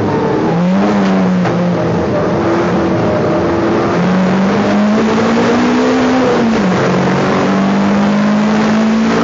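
Race car engine heard from inside its stripped, roll-caged cabin, running at racing speed: the revs climb and drop back sharply three times, near the start, about four seconds in and near seven seconds in.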